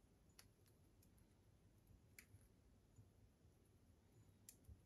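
Near silence broken by three faint clicks, about two seconds apart, from wires and small plastic parts being handled as they are worked into a cable bundle.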